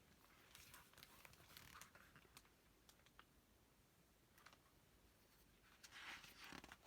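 Faint paper rustles and small clicks, in two short flurries: the pages of a picture book being handled and turned.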